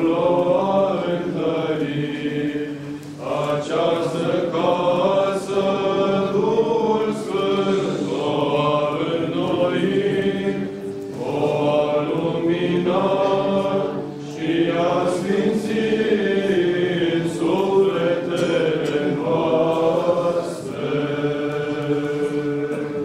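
Orthodox clergy chanting a hymn together in Romanian, in long sung phrases broken by short pauses for breath.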